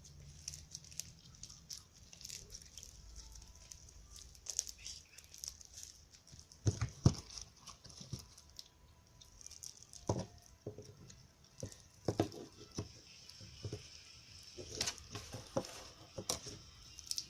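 Hands kneading sticky slime packed with styrofoam beads: irregular crackling, squishing and popping, with several louder pops scattered through.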